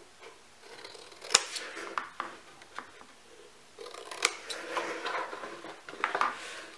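Scissors snipping through scrapbook paper, a series of irregular sharp snips mixed with the rustle of the sheet as the excess paper is trimmed along pencil marks.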